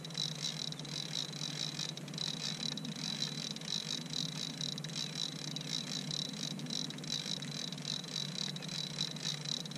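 Steady, evenly pulsing insect chorus from the mangroves, with a low steady hum beneath it.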